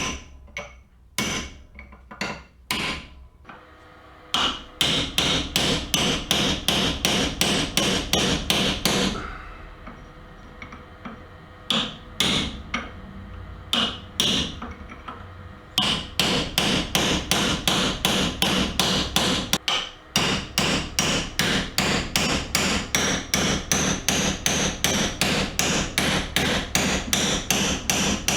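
Hammer striking the metal sleeve of an old rubber motor-mount bushing over and over, about three blows a second in long runs with a short break near the middle, each blow ringing. The bushing is stuck fast in the mount and is not coming out.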